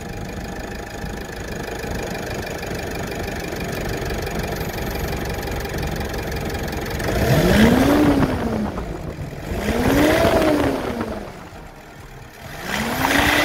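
Kia Sportage 2.0 CRDi four-cylinder common-rail diesel idling with a chip tuning box fitted. About seven seconds in, it is revved three times, each rev rising and falling in pitch over about a second and a half.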